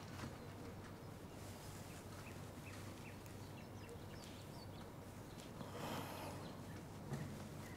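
Quiet room ambience with a steady low hum and a few faint, short high chirps, and a soft rustle about six seconds in.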